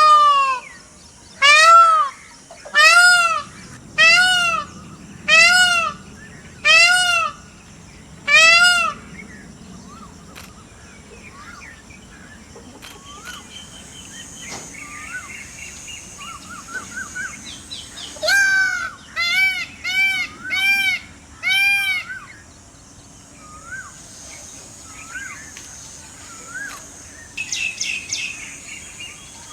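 A peacock calling loudly: a run of seven calls about one a second, then after a pause a quicker run of five. Fainter chirps from smaller birds fill the gaps.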